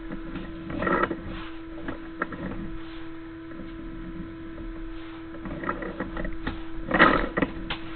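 Steady electrical hum from a sewer inspection camera system, with irregular bursts of scraping and knocking as the camera's push cable is fed down the drain line; the loudest burst comes near the end.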